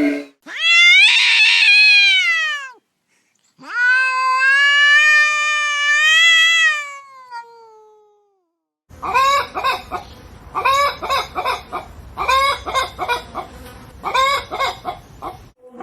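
Animal calls: two long, drawn-out pitched cries, the first falling away at its end and the second rising then falling. After a short pause comes a quick, repeated pulsed calling in several bursts.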